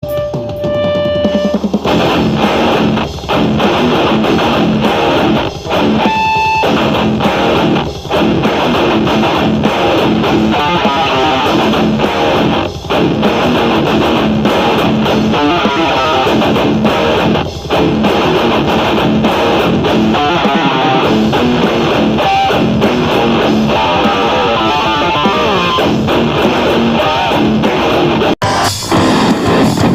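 Heavy metal-style music driven by electric guitar, with a brief break near the end.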